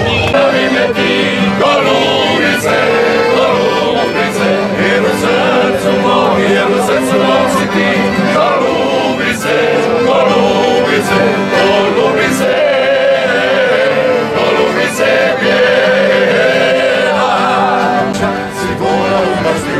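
A group of men singing a folk song together to accordion accompaniment, with a guitar-like string instrument playing along.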